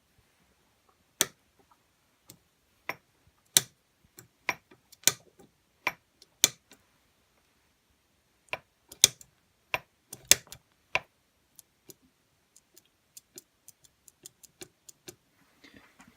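The feed ratchet of a Perfecto hand shaper clicking as the mechanism is worked by hand. Sharp metallic clicks come at irregular intervals, then lighter clicks at about two or three a second near the end. This is the auto-advance ratchet whose feed is hit and miss.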